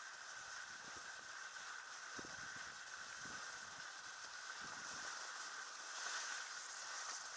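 Dog-drawn sled running over a snowy trail: a steady hiss of the runners on snow mixed with wind, with a few soft low bumps.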